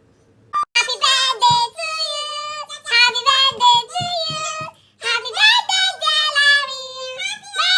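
A high-pitched child's voice singing, starting about half a second in, with a short break around the middle.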